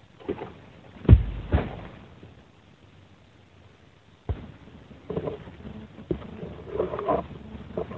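Heavy thud about a second in, with a second thud half a second later, as an oil palm fruit bunch cut with a long-pole egrek sickle drops to the ground. From about four seconds in, footsteps rustle through low undergrowth.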